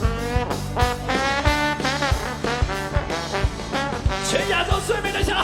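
A live band's brass solo, played over a steady drum beat and bass groove.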